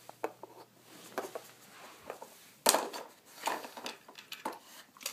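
Hard plastic of a Nina Ottosson dog puzzle knocking and rattling as a dog noses and paws at it: a string of sharp clicks and knocks, the loudest about halfway through.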